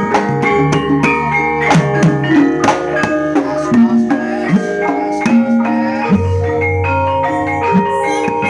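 Campursari ensemble playing: many quick struck, ringing metal notes in the manner of gamelan metallophones, with drum strokes and long held low notes underneath.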